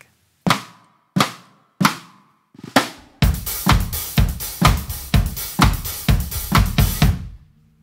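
Snare drum cross stick with a clapping effect: the butt of the stick slaps the head a split second before the stick comes down across the rim, giving a clap-like double attack. Four single strokes, then from about three seconds in a steady dance-style groove with bass drum under the clap.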